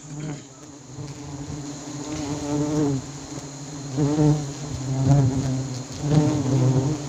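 Swarm of giant honeybees buzzing around their exposed comb. It is a steady low hum that swells louder several times as bees fly close.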